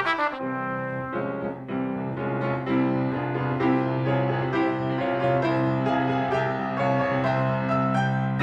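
Petrof grand piano playing a solo interlude without the cornet: struck chords over a held bass line.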